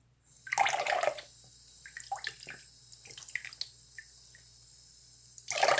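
Water splashing and dripping in a sink as a pop-it fidget toy is washed. There is a louder splash about half a second in, scattered small drips and splashes after it, and another loud splash near the end.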